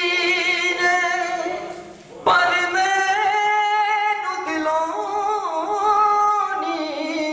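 A man singing solo, unaccompanied, into a handheld microphone: long held notes with vibrato, in two phrases with a short breath about two seconds in.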